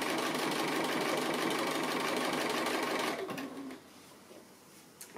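Bernina sewing machine running steadily while free-motion stitching, needle going up and down rapidly, then slowing and stopping a little over three seconds in. A faint click follows near the end.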